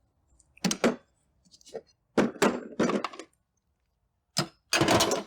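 Air tools being handled and set down in a metal tool-cart drawer: a series of short clunks and clinks, with a longer clatter near the end.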